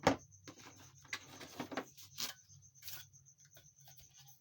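A few light knocks and clicks as the demolition hammer's steel bits and accessories are handled and set down, over a steady low electrical hum.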